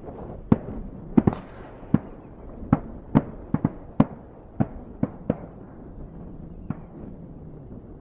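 Shotguns of duck hunters firing a rapid volley: about a dozen sharp reports over some six seconds, some in quick pairs, each trailing a short echo. A steady rush of wind noise runs underneath.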